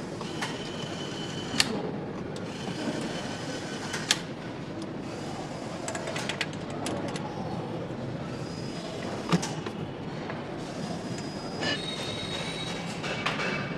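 Motorcycle engine assembly hall ambience: a steady machine and hall noise with sharp metal clinks of parts and tools, the loudest about a second and a half, four and nine seconds in, and a few short high squeaks.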